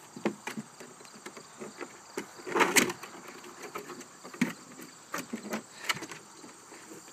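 A golden retriever puppy's paws and claws scrabbling on the steps of a plastic toddler slide as it climbs: scattered knocks and clicks, with one longer, louder scrape about two and a half seconds in.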